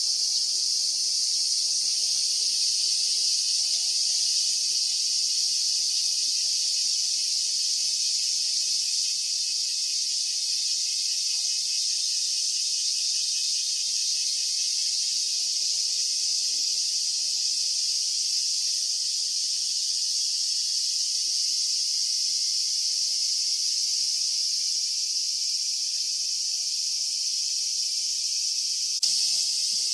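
A steady chorus of cicadas: a continuous high, hiss-like buzzing that does not let up.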